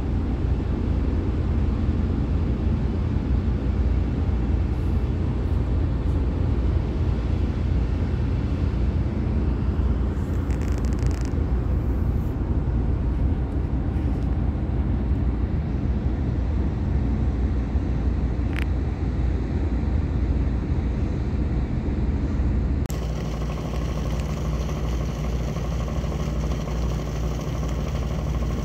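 Steady low rumble of a boat's engine heard from aboard the moving vessel. About two-thirds of the way through, the sound changes abruptly to a steadier engine drone with a clearer hum, and there is one brief tick shortly before that.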